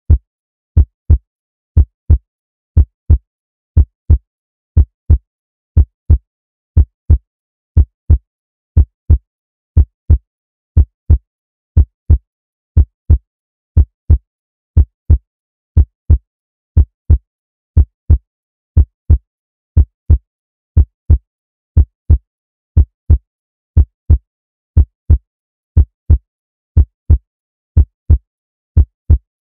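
Heartbeat sound effect: a steady lub-dub, two low thumps close together, repeating about once a second.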